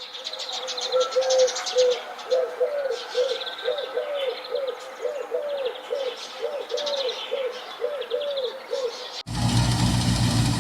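Birds calling: a run of short, repeated low arching notes with higher chirps over them. About nine seconds in, it cuts abruptly to a steady, louder engine running.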